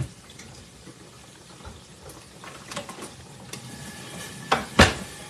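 Chicken legs frying in hot oil in a covered skillet: a steady sizzle with small scattered pops. Two sharp knocks about four and a half seconds in are the loudest sounds.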